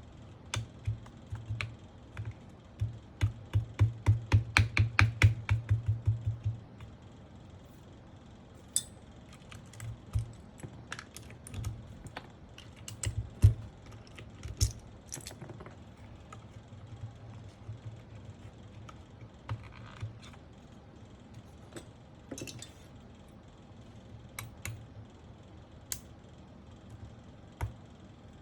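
Mechanical keyboard keys clacking under presses: a fast run of presses for about the first six seconds, then scattered single presses and taps.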